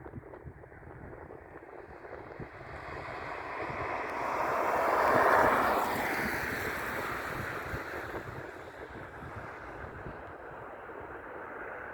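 Jet airliner passing by, a broad rushing engine noise that builds, is loudest about five seconds in, then slowly fades away.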